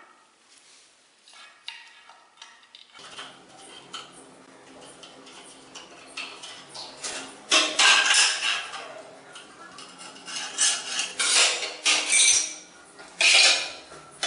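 Ceramic floor tiles and tiling tools clinking and scraping against one another as they are handled and set down. It is fairly quiet for the first few seconds, then comes in several sharp bursts of clatter in the second half.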